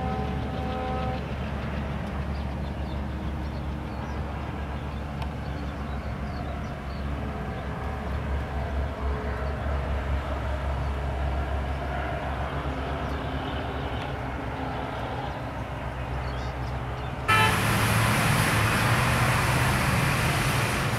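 Distant diesel-hauled passenger train running past with a steady low rumble, its horn sounding briefly at the start. About seventeen seconds in, this gives way abruptly to louder road traffic from buses and trucks.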